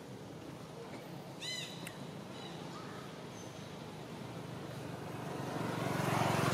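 A motor vehicle engine approaches, growing steadily louder over the last second or two. About one and a half seconds in, a short, high, chirping call sounds over the outdoor background.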